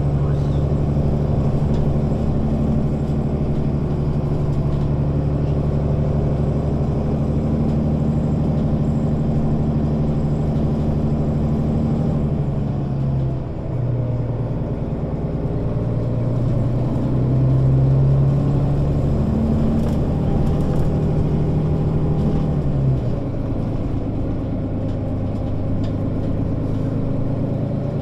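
Mercedes-Benz O 530 Citaro Facelift city bus's diesel engine running while the bus is driven. The note holds steady, dips about thirteen seconds in, picks up again after about sixteen seconds and falls to a lower steady note near the end.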